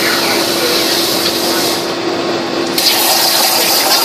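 Plasma torch of a CNC plasma table cutting steel: a loud, steady rushing hiss of the arc and air jet. The hiss thins for about a second past the middle, then comes back brighter.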